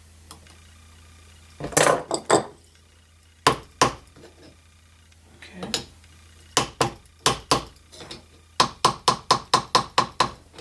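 Small hammer tapping a rivet pin into a tight-fitting drilled hole: groups of sharp metallic taps, ending in a quick run of about nine light taps.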